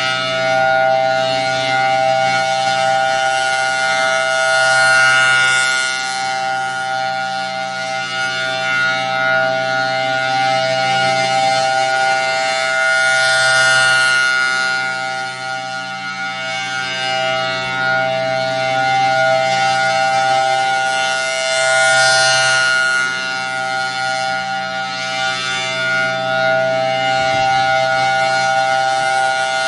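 Federal Signal Thunderbolt 1003 outdoor warning siren sounding its steady full-alert tone at one fixed pitch. The sound swells and fades about every eight to nine seconds as the rotating siren head sweeps past.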